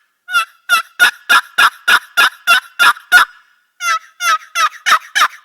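Knight & Hale Switchblade turkey box call, its lid scraped across the box to make a run of wild turkey hen yelps, about three a second. About ten yelps come first, then a short pause about three seconds in, then a second run begins.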